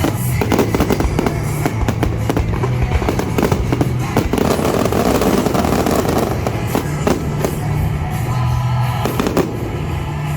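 Aerial fireworks bursting and crackling in rapid, dense volleys over show music with a steady bass line; the bangs thin out near the end.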